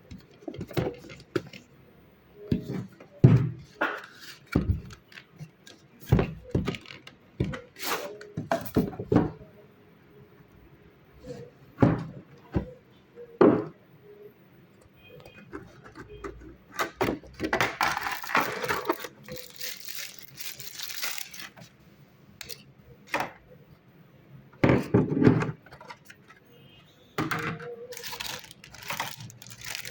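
Handling noise: irregular clicks and knocks of hard plastic objects being picked up and set down, with a few seconds of rustling in the middle, as a hair clipper and its packaging are handled.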